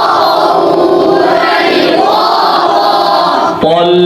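A group of students chanting an Arabic letter drill for Quran recitation in unison. Their many voices blur together. About three and a half seconds in, a single clear voice takes over.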